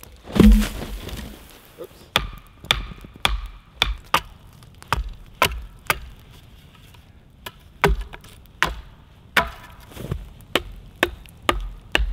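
Axe chopping into a log lying across a campfire: a long series of sharp blows, about one to two a second, the loudest about half a second in.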